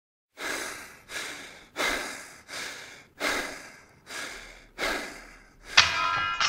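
Heavy breathing, about seven breaths in a row, each one sudden and then fading. Near the end comes a sudden loud, sharp sound with a ringing tone.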